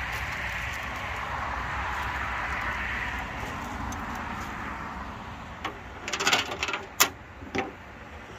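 Loose .325 saw chain clinking and rattling as it is handled, in a few short metallic jingles and clicks over the second half. Before that, a steady rushing noise fades out.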